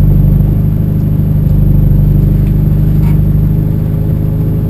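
Rally car engine running steadily at a constant speed, heard from inside the stripped cabin as a loud, low drone.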